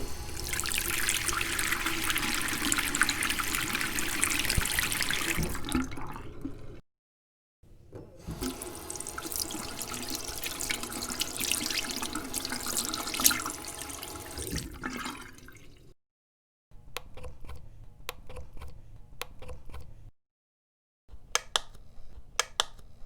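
Bathroom sink faucet running, water splashing into the basin, then shut off about 7 seconds in; it runs again from about 8 seconds and stops about 16 seconds in. Near the end come two short runs of light clinks and taps.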